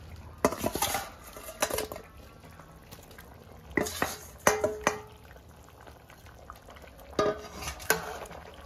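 Steel bowl and ladle clinking and scraping against an aluminium pan as fried fish are slid into a simmering curry and the ladle works around them. There are four short clusters of knocks, a couple ringing briefly with a metallic tone, over a steady low hum.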